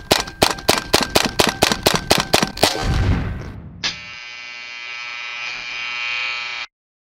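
Intro sound effects: a rapid string of about fourteen gunshot-like cracks, about five a second, then a low boom. A steady buzzing electronic tone follows and cuts off suddenly near the end.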